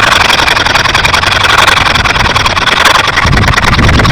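Rub brick being scrubbed back and forth over a fresh hydraulic-cement curb patch, a loud continuous gritty scraping that stops abruptly at the end. The brick is smoothing the transition between the old curb and the patch.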